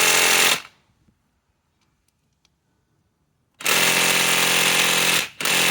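DeWalt DCF891 mid-torque cordless impact wrench hammering on a large lag bolt in wood. One burst stops about half a second in, then after about three seconds of quiet it starts again, with a short break near the end. The wrench is struggling and fails to drive the lag all the way in.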